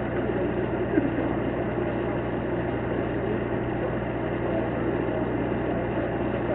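Steady rumble of idling engines under a constant low hum, with one brief louder sound about a second in.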